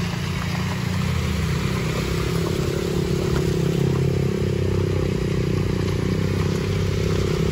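Vehicle engines running as a small MPV climbs an unpaved road toward the microphone, with motorcycles behind it. The steady engine note rises slightly in pitch through the second half.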